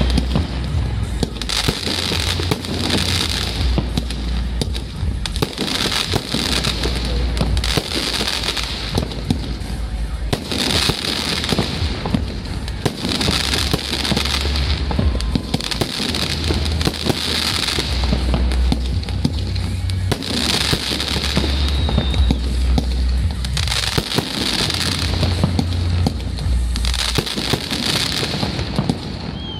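Aerial firework shells bursting one after another in a continuous barrage, with crackling and sharp bangs, over music with a deep bass line.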